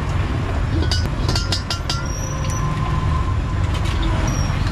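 Street-food cart cooking station: a steady low rumble, with a quick run of metal clinks from utensils on the steel counter and wok between about one and two seconds in.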